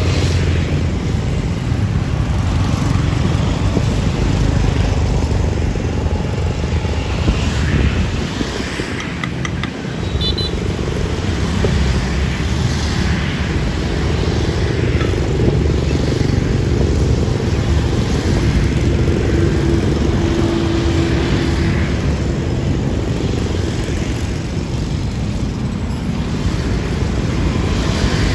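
Steady road traffic, mostly motorbikes with some cars, passing along the bridge roadway close by.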